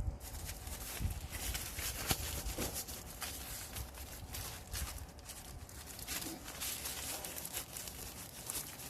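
Irregular light clicks and knocks of hand tools and parts being handled during mechanical work.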